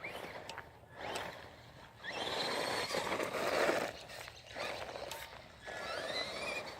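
Small electric RC car driving in several short bursts, its motor whining and its tyres crunching over gravelly ground.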